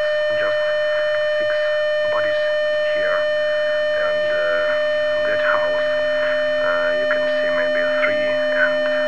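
Electronic music: a steady synthesizer drone held throughout, a second, lower drone tone joining about three seconds in, and short wavering, sliding sounds over the top.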